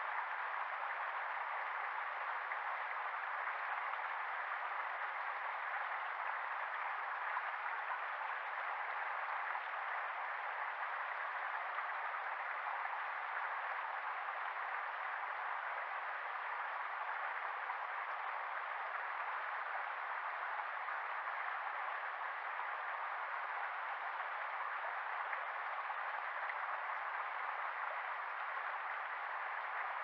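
Shallow rocky stream babbling over stones: a steady, even rush of water with no change in level.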